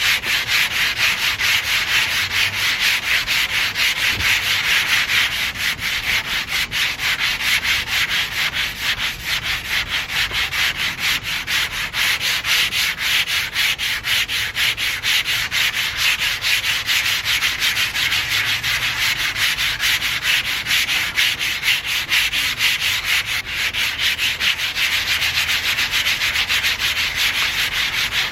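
Sandpaper on a hand sanding block scrubbing the paint of a 1991 Toyota MR2's body panel in quick, continuous back-and-forth strokes.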